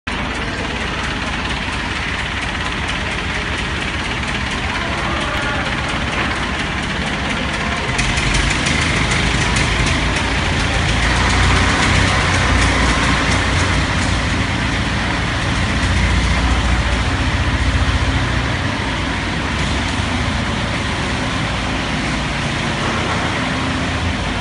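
Steady engine-like rumble of heavy machinery running, louder for a stretch in the middle.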